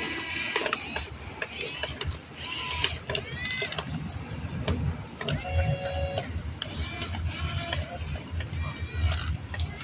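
Whine of a toy RC excavator's small electric motors, starting and stopping in short bursts, with a steadier stretch about halfway through.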